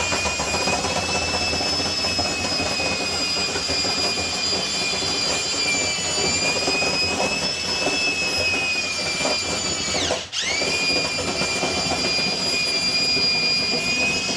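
Electric drill running steadily, spinning a dryer-vent cleaning brush on flexible rods up the vent duct. About ten seconds in the drill stops for a moment and spins back up.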